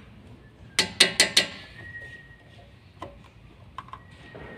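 Metal hand tools clinking against metal: about four sharp, ringing clinks in quick succession about a second in, then a few faint clicks as pliers are brought to the brake caliper.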